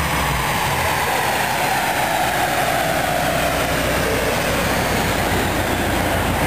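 Subaru WRX on a Dynojet chassis dyno coasting down after a pull: a steady rumble with a whine from the spinning wheels and dyno roller that falls slowly in pitch as they slow, the engine's revving having just ended.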